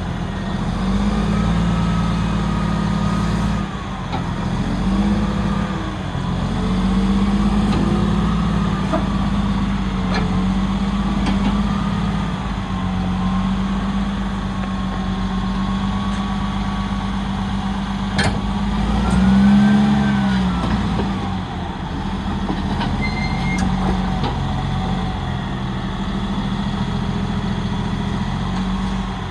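Caterpillar D6T LGP crawler dozer's six-cylinder diesel engine running as the machine is worked, its note rising and falling with load. A higher whine wavers in pitch above it. There is one sharp click about eighteen seconds in, and the engine swells in pitch and loudness shortly after.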